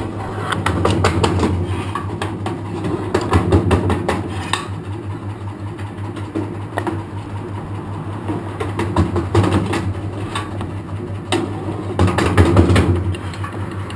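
Electric kindling machine, driven by a 1 hp motor with a flywheel, running with a steady hum while blocks of wood are fed in and chopped into kindling with rapid repeated knocks and the crack of splitting wood. The chopping thins out in the middle and comes thick again near the end.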